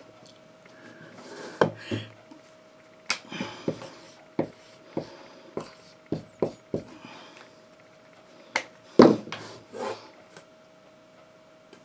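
About a dozen irregular light taps and knocks with some rubbing, the loudest about nine seconds in, over a faint steady hum.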